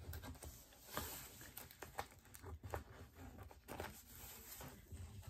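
Faint, scattered clicks and light rustles of hands working at a taped package, with scissors to hand to cut the tape.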